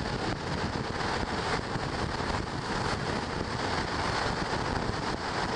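Steady wind rushing over the camera's microphone, with a rumbling low end.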